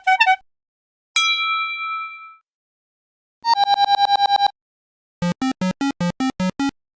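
A series of iPhone system alert tones played one after another, with short silent gaps. It begins with the tail of a quick patterned alert, then a single chime that rings for about a second. A fast run of about ten quick beeps follows around the middle, and about eight evenly spaced electronic pulses come near the end.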